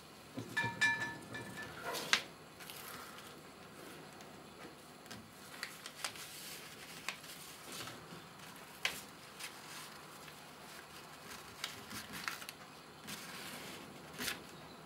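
Fingers pressing a self-adhesive LED strip onto a metal laser-cutter gantry: scattered light clicks, taps and rubbing, with a short squeak about a second in.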